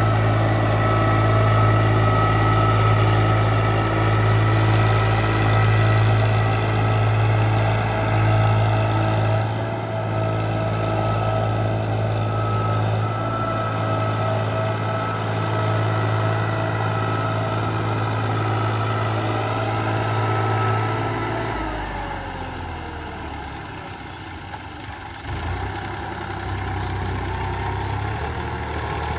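TAFE tractor's diesel engine running steadily under load while tilling a wet field. About three quarters of the way through, the engine note drops and slides lower in pitch, the sound fades briefly, and then it settles at a lower, quieter note.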